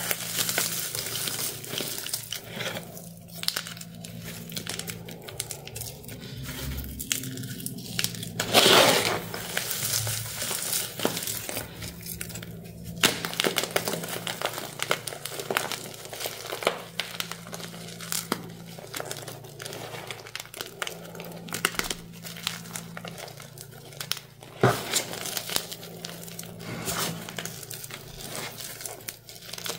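Chalky glitter bombs being crushed and crumbled by hand in a plastic tub: a continuous run of crunching and gritty crumbling, with a few louder crunches as bigger chunks break.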